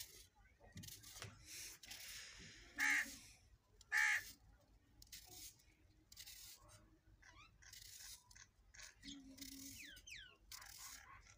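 Two loud, harsh bird calls about a second apart, a few seconds in, over faint scattered rustling and scraping. A few quick, high, falling chirps come near the end.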